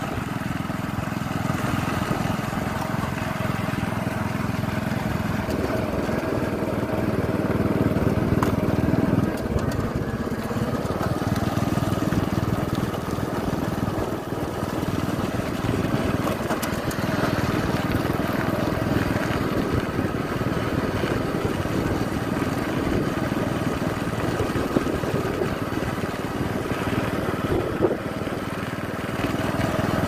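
Small motorcycle engine running steadily while riding, its pitch wavering slightly as the speed changes.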